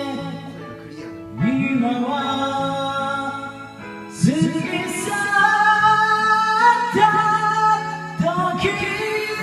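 Karaoke song playing, with sung notes held over an instrumental backing track.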